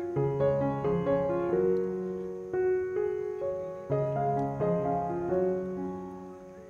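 Background piano music: a slow, gentle melody of struck notes, each fading away.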